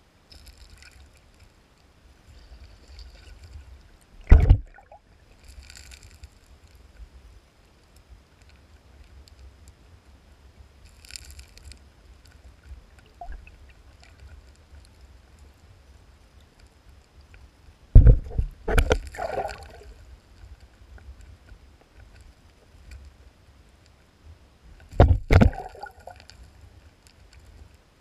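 Underwater sound in a shallow stream where sockeye salmon are spawning: a low water rumble with soft gravel rustles, broken three times by loud knocks and thumps as the salmon's tails strike the stones. There is one sharp knock about four seconds in, a cluster of knocks around eighteen to nineteen seconds, and a pair near twenty-five seconds.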